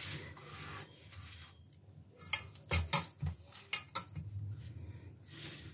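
Silicone spatula scraping through a crumbly mawa, semolina and coconut filling in a stainless steel bowl, followed a couple of seconds in by a cluster of sharp clicks and taps against the steel.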